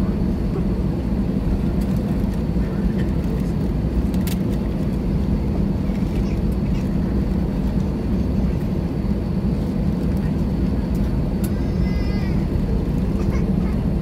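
Cabin noise of an airliner rolling along the ground after landing: a steady low rumble of engines and wheels, with a couple of faint clicks.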